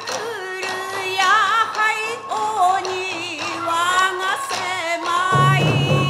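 Traditional Japanese folk-performance music: a held sung line with a high, wavering melody above it, and drum beats coming in near the end.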